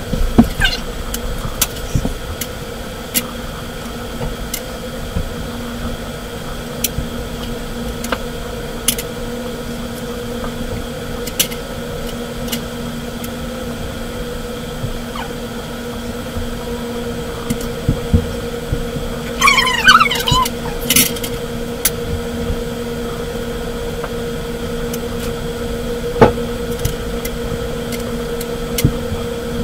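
Stone chess pieces clicking now and then as they are set down on a marble chessboard, over a steady electrical hum. A brief high squeak comes about twenty seconds in.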